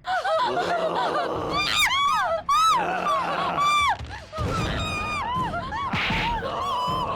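Eerie horror background music of wailing, gliding high tones, with a low thud about six seconds in.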